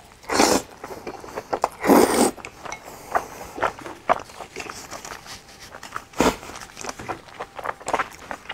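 A person slurping noodles from a bowl in two loud slurps, then chewing noisily with many short wet clicks and smacks. A single short thump about six seconds in.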